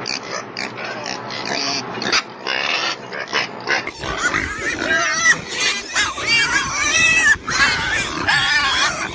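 Domestic pigs grunting: short, separate grunts at first, then from about four seconds in a quicker run of higher, pitched grunts, one after another.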